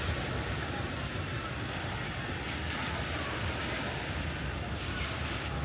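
Small waves washing onto a sandy beach, with wind buffeting the microphone in a steady low rumble.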